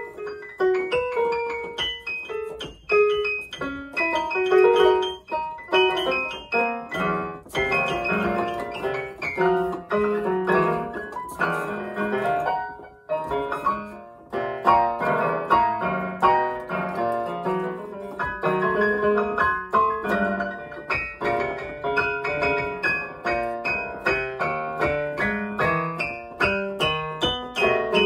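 Digital piano being played: a continuous run of chords and melody notes, with a brief lull about halfway through.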